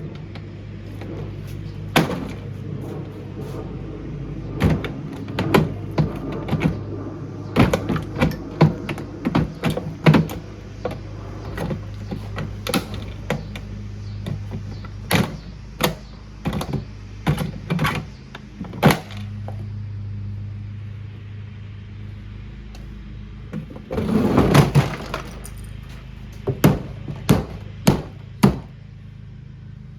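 Repeated heavy blows on the plastic body of a Kuppet portable washing machine being smashed apart: dozens of irregular knocks and thunks, with a denser, noisier stretch of about a second near the end.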